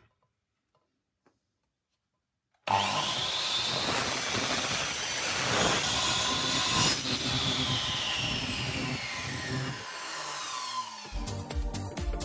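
Bosch PCM 8 S mitre saw switched on about three seconds in, cutting through a wooden board, with the dust extractor that starts with the saw running alongside; the motor's whine falls away as the saw winds down near the end. Background music comes in over the last second.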